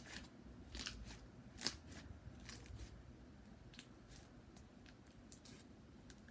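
Faint, irregular crackling clicks of slime being handled and pressed with the fingers, a few sharper pops in the first two seconds, thinning out after.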